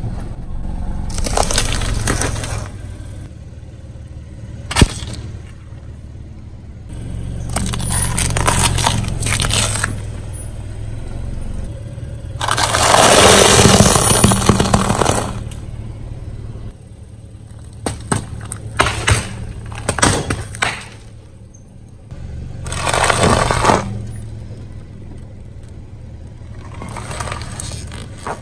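Car tyre rolling over and crushing crunchy dry food and plastic baskets: crackling and snapping in several separate bouts, the loudest about halfway through, with single sharp snaps near the start and a cluster of snaps later on.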